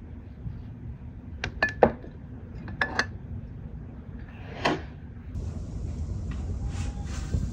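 Glass jars clinking sharply as they are handled and filled with sugar: two quick runs of three clinks with a brief ring, then a short swish about two-thirds of the way through.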